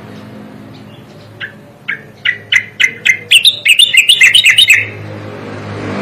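Striated grassbird (cucak koreng) singing one phrase. It starts with a few spaced notes, which speed up and rise in pitch and loudness into a fast rattling warble, then stop abruptly. There is a faint low hum underneath.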